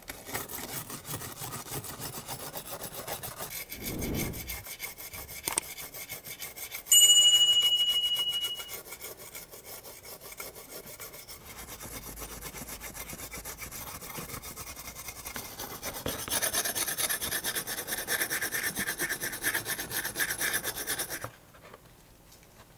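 Small steel wire brush scrubbing flaking paint off a metal model car body in rapid, scratchy strokes. About seven seconds in, a brief high ringing tone is the loudest sound, dying away within two seconds. The scrubbing grows louder near the end, then stops suddenly about a second before the end.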